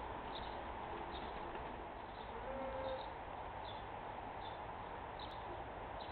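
Quiet outdoor ambience with a steady low hiss, and a small bird chirping faintly at intervals of about three-quarters of a second.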